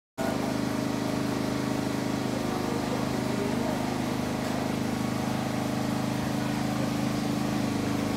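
An engine running steadily at a constant pitch, a loud, even drone.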